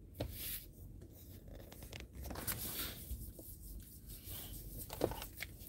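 Faint rubbing and scattered small clicks from a hand handling the phone that is recording, with a slightly sharper tap about five seconds in.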